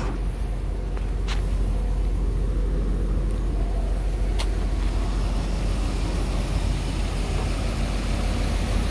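The box truck's 5.7-litre 350 V8 gasoline engine idling steadily with a low rumble. Two faint clicks sound about a second in and again about four seconds in.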